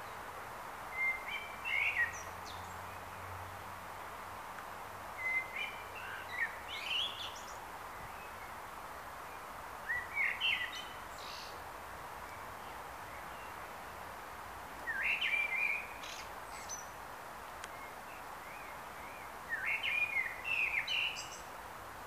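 Male common blackbird (Turdus merula) singing: five short warbled phrases a few seconds apart, each climbing into higher notes at its end, over a steady background hiss.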